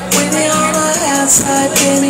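Pop music playing with a steady beat of high, crisp percussion strikes over sustained pitched notes.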